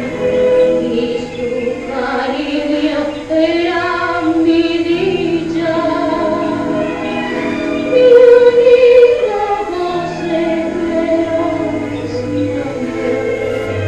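A woman singing a song with vibrato in long held notes, with musical accompaniment, from an old film's soundtrack played back over the hall's sound system.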